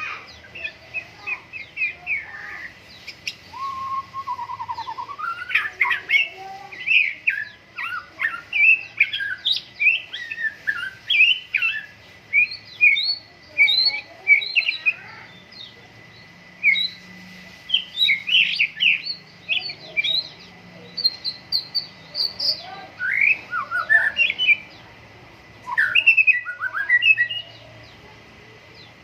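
White-rumped shama singing in full voice: a long run of rapid, varied whistled phrases with short pauses, stopping shortly before the end. A faint steady high tone runs underneath.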